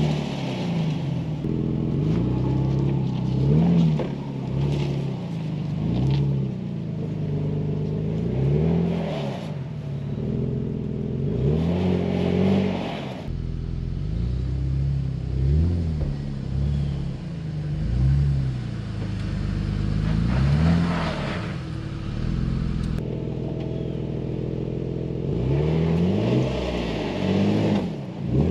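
A 2005 Jeep Liberty KJ's engine revving up and easing off again and again, about every two seconds, as the stock 4x4 works its way up a steep, loose, rutted climb.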